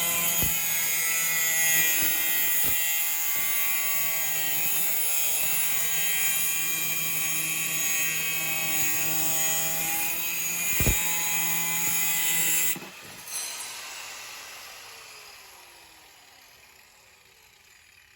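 Electric power tool running steadily with a high hiss as it works metal, with a few sharp knocks, then switched off about 13 seconds in and winding down with a falling whine.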